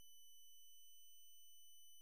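Near silence, with only a faint, steady, high-pitched electronic tone.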